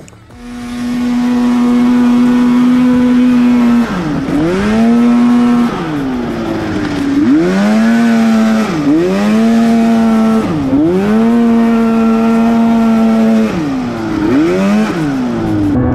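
The engine of a custom long-travel Honda Odyssey buggy is running hard under way, holding one high pitch under load, then dipping and climbing back several times. It is pulling well after a clutch adjustment.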